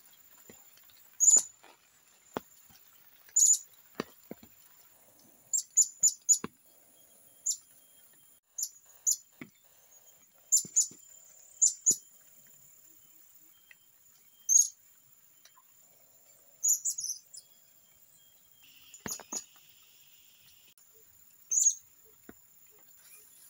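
Blue-crowned hanging parrot giving short, sharp, high-pitched chirps at irregular intervals, sometimes two to four in quick succession.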